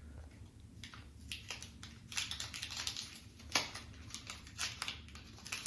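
Small packaging being opened by hand: quiet, irregular crinkling and clicking, busiest in the middle, with one sharper click a little past halfway.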